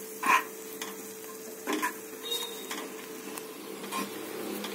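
Steel spoon stirring grated carrot cooking in milk in an aluminium pressure-cooker pan, giving a few scattered clicks against the pan, over a faint steady hum.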